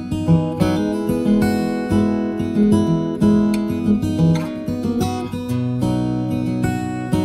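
Background music on acoustic guitar, with strummed chords and plucked notes.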